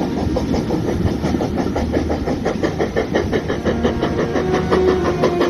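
Steam train running, heard from a carriage window: a loud, fast, even beat of the locomotive and wheels with a few steady tones over it.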